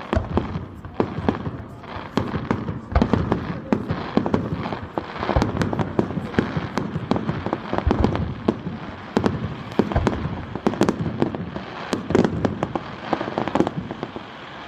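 Fireworks display going off: a dense, continuous run of sharp bangs and crackles, several a second, with a few louder booms among them.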